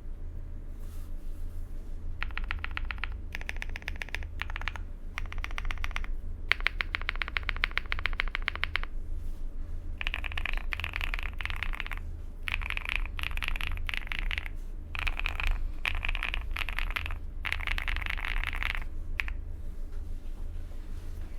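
Typing on a QK65 custom mechanical keyboard with lubed Jerrzi Rouge switches on a POM plate, fully foamed, with PBT keycaps. The keystrokes come in bursts of rapid strokes separated by short pauses, over a steady low hum.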